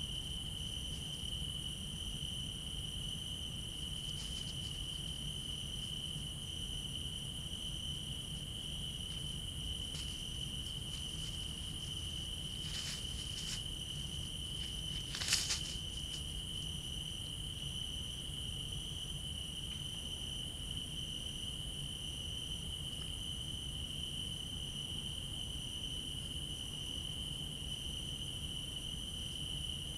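Night-time chorus of crickets: a steady, unbroken high trill with a fainter pulsing chirp above it. A few short clicks or rustles sound around the middle, the loudest about halfway through.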